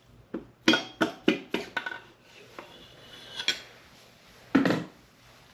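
Metal engine parts clinking as a Model A Ford engine's connecting rod cap and piston are handled during teardown. There is a quick run of sharp, ringing clinks about a second in, a single clink later on, and a heavier clunk near the end.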